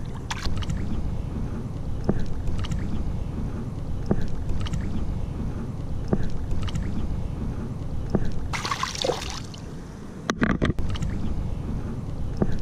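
Steady low wind rumble on the microphone with faint water sounds in the shallows, a few soft clicks, and a short hissing burst about nine seconds in.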